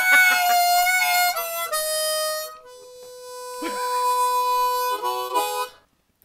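Blues harmonica playing held notes and short phrases, breaking off briefly near the end.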